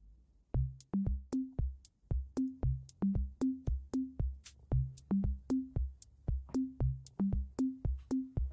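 Electronic background music: a steady drum-machine beat of about three hits a second over a stepping synth bass line.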